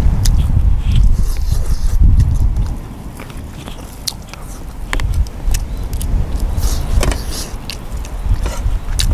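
Wind buffeting the microphone outdoors: a heavy, uneven low rumble that eases about three seconds in and comes back a couple of seconds later. Over it come scattered light clicks and bites of someone eating with chopsticks.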